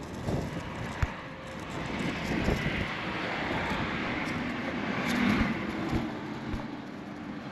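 A vehicle passing by in the background: a noisy rush that swells over a few seconds and then fades. A single sharp click comes about a second in.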